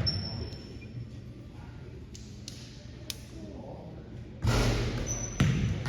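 A basketball bouncing on a gym's hardwood floor: two loud thuds that ring in the hall near the end, with a few faint taps earlier.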